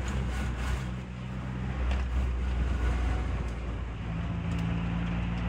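Car engine and road noise heard from inside the cabin while driving, a steady low hum whose note shifts slightly about four seconds in.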